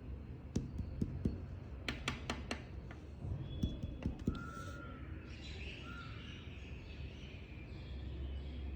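Sharp knocks in short runs, several in quick succession in the first few seconds, with a pet white-faced cockatiel giving a few short chirps in between.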